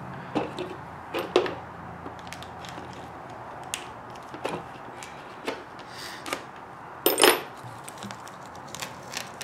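Scattered clicks and light knocks of small parts and tools being handled on a workbench, with the sharpest clatter about a second in and a longer one about seven seconds in.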